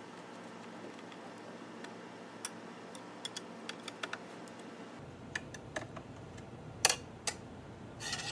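Light, irregular clicks and taps of a screwdriver working at screws on a metal mounting bracket, with one sharper click near the end.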